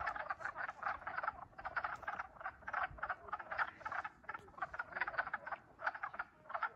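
A chorus of wood frogs calling, many short calls overlapping at several a second.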